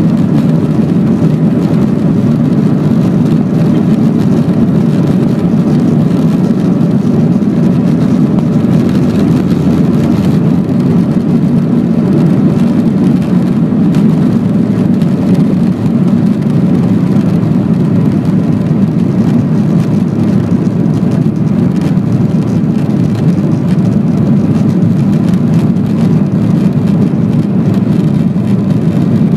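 Boeing 737-700's CFM56 jet engines at takeoff thrust, heard from inside the cabin: a loud, steady drone through the takeoff roll and the climb after liftoff.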